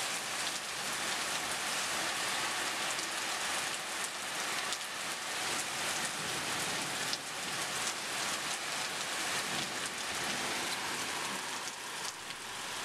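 Heavy thunderstorm rain falling steadily: a dense, even hiss of rain on surfaces with faint scattered drops.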